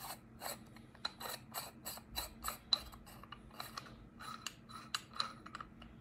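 A run of small sharp plastic clicks, about four a second, as the AGPTEK AC08 condenser microphone's body and knobs are twisted and worked by hand while trying to open it.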